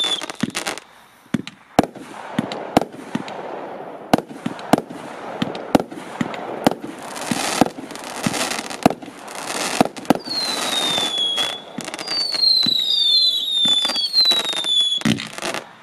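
A 20 mm consumer firework cake firing its finale: a quick run of sharp shots and bangs, with shrill whistles falling in pitch at the start and again in the last five seconds. Dense crackling fills two stretches in the middle.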